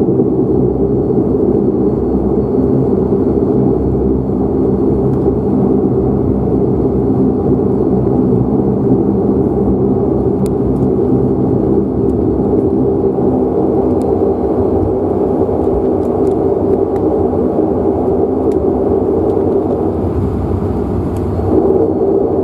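Dash 8 Q400's turboprop engine and six-bladed propeller droning steadily during a ground taxi, heard from a cabin seat beside the propeller. The drone swells slightly near the end.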